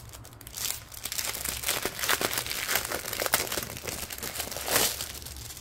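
Crinkling of a clear plastic zip bag and the strip of small plastic drill packets inside it as they are handled and pulled out, in irregular crackles with louder rustles about two seconds in and near the end.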